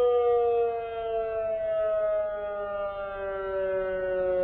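Civil defense siren wailing, a two-tone chord slowly falling in pitch.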